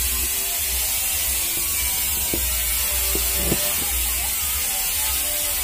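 Light clicks and knocks of small fan-motor parts being handled and fitted, a handful spread out over a few seconds, over a steady hiss and low hum.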